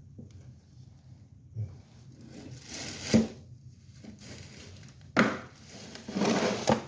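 Handling noise: two spells of rubbing and rustling with three sharp knocks, as small objects are handled on a work surface.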